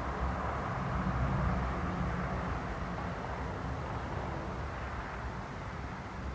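Aircraft engine drone from a plane at an air show, easing slightly toward the end, with wind rumbling on the microphone.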